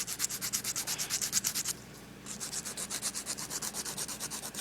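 Nail file rasping rapidly back and forth on a small plastic Lego piece, shaving off a moulded part: fast, even strokes in two runs, with a short pause about two seconds in.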